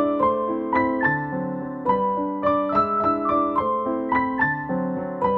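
Background music: a gentle piano tune of plucked-sounding notes in a steady, repeating melody.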